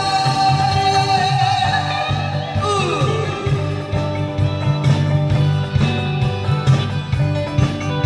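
Music with singing: a voice holds a long note over guitar and a steady beat, then slides down about three seconds in.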